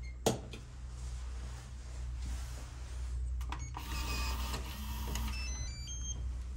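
A switch clicks once, then an electronic door lock whirs briefly and plays a short run of beeps at changing pitches, over a steady low hum.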